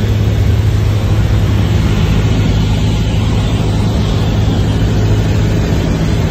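Cessna 172's piston engine and propeller droning steadily in flight, heard inside the cockpit: a strong, even low hum with rushing air noise over it.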